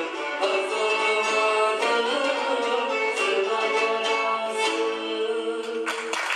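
Acoustic folk ensemble of classical guitar, violin and plucked lutes, with a male singer, playing the closing bars of a Turkish folk song and ending on long held notes. The music stops about six seconds in and applause breaks out.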